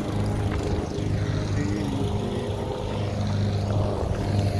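Kingsong S18 electric unicycle's hub motor humming steadily while riding, an even low drone.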